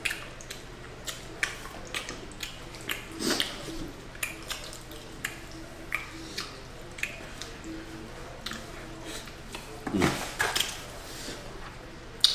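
Close-miked eating sounds: irregular wet smacks and clicks of chewing and lip-smacking. A louder, lower sound comes about ten seconds in.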